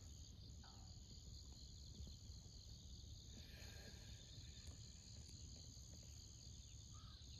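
Faint outdoor quiet dominated by a steady, high-pitched chorus of crickets or similar insects in the surrounding grass. A crow gives its first caw near the end.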